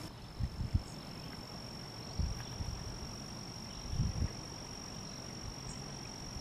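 Wind buffeting the microphone in short low rumbles, a few times: about half a second in, at two seconds and strongest around four seconds. Under it runs one steady high-pitched buzz, like a singing insect.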